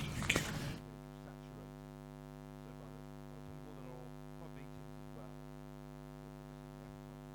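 Steady electrical mains hum in the sound feed, a buzz with many even overtones, after a short burst of rustling and knocks in the first second. This fits a microphone being changed over, with the new one not yet working properly.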